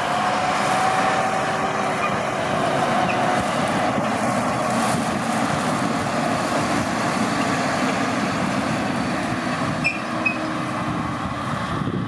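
Massey Ferguson 7719 S tractor's six-cylinder diesel engine running steadily as it drives across the stubble hauling a grain trailer. A faint whine rides on the engine for the first few seconds.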